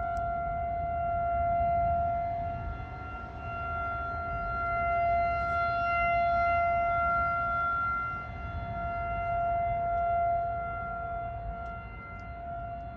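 Outdoor tornado warning siren sounding a steady tone that swells and fades every few seconds, over a low rumbling noise.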